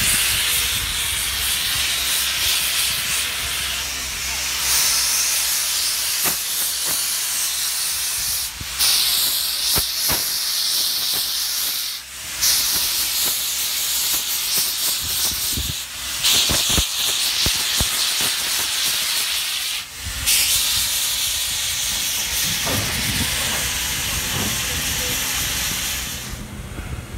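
Steam locomotive Robert Dollar #3 venting steam from its open cylinder cocks as it rolls slowly along, a loud hiss that comes in long blasts with a few brief breaks.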